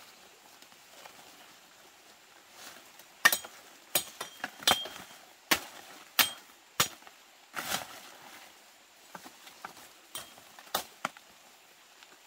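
A series of about a dozen sharp knocks or chopping strikes at an uneven pace, starting about three seconds in, the first one the loudest.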